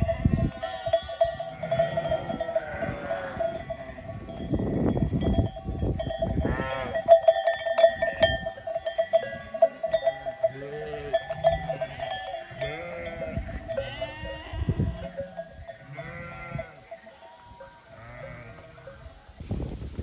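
Sheep bleating again and again over the steady jangle of sheep bells.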